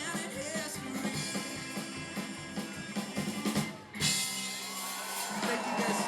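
Band music with singing, drums and guitar, a song with a rock beat. About four seconds in it turns brighter and louder.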